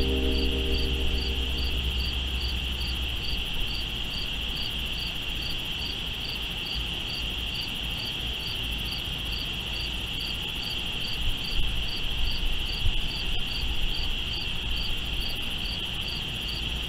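Steady chorus of night insects: a continuous high cricket trill, with a second insect chirping evenly above it about two or three times a second.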